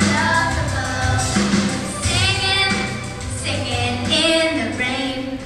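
Young girls singing together into stage microphones over musical accompaniment.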